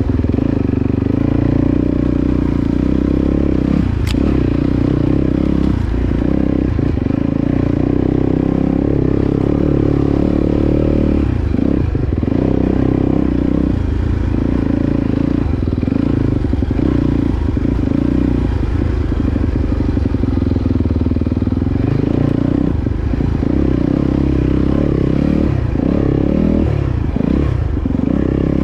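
Off-road dirt bike engine running under load on single-track, the engine note rising and falling as the throttle is opened and rolled off, with several brief drops in between.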